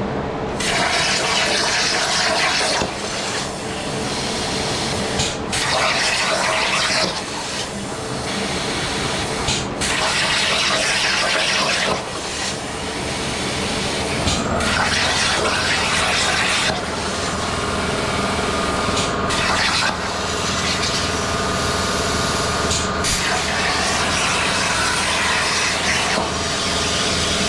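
Langmuir Crossfire CNC plasma torch cutting metal: a loud rushing hiss of the arc and air that breaks off and restarts several times as the torch moves between cuts. A steady hum from a large floor fan running beside the table sits underneath.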